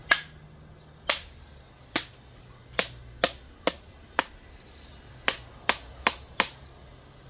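A series of eleven sharp knocks, unevenly spaced, roughly one to two a second and quicker in the middle.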